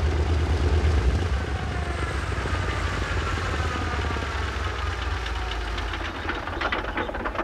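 Seaplane's piston engines running with a deep rumble as it taxis on the water, an engine whine sliding slowly down in pitch as they are throttled back.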